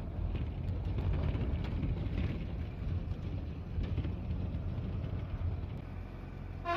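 Steady low rumble of a bus in motion, engine and road noise heard from inside the passenger cabin.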